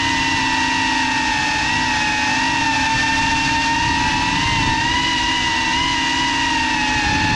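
FPV quadcopter's brushless motors and propellers whining steadily, the pitch wavering slightly as the throttle changes, over a low rumble.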